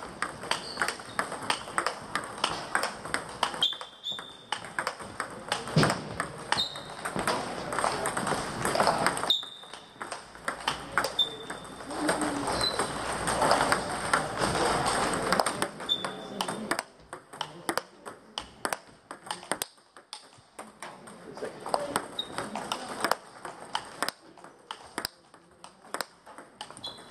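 Table tennis balls clicking off bats and tables, many hits in quick, irregular succession from several players rallying at once, with a few short high squeaks in between.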